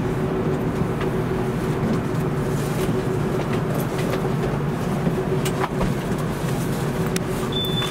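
Steady drone of a passenger train at the station platform, heard from inside the carriage: a low, even electrical and mechanical hum with a few faint clicks.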